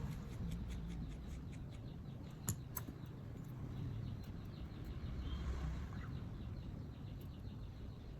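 Faint small clicks and taps, with one sharper click about two and a half seconds in, over a low steady hum.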